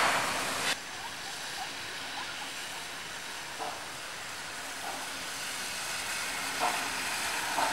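Faint, steady hiss of steam from DB class 41 steam locomotive 41 096 approaching at a distance, with a few faint knocks. A louder train noise cuts off abruptly under a second in.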